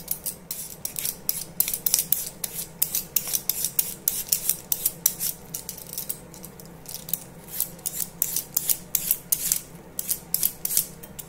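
Y-peeler scraping strips of tough rind off a raw pumpkin wedge, in many short strokes following quickly one after another, with brief pauses as the wedge is turned.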